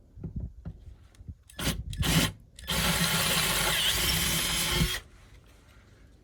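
Power drill boring out a rivnut hole to final size: a few handling knocks and a short burst of drilling, then about two seconds of steady drilling that stops suddenly about five seconds in.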